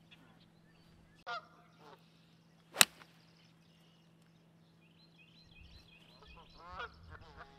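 A golf club strikes the ball once, about three seconds in: a single sharp crack, the loudest sound. Geese honk once before the shot and several times near the end.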